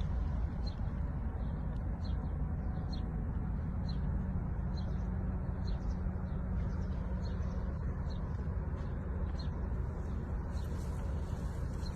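Small birds chirping over and over in short high notes, over a steady low rumble.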